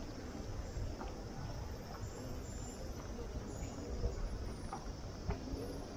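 Open-air street ambience: a steady low rumble with a faint, steady high insect drone over it and a few light ticks scattered through.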